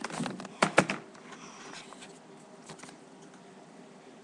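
A few sharp knocks and clicks within the first second, then low room noise.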